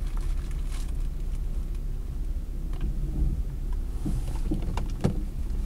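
Steady low rumble of a car idling, heard from inside the cabin, with a few light clicks and rustles of handling in the second half.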